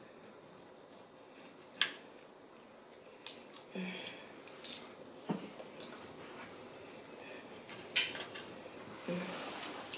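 Knife and fork cutting meat on a ceramic plate: scattered clicks and scrapes of the cutlery against the plate, with a sharp click about two seconds in and another near the end.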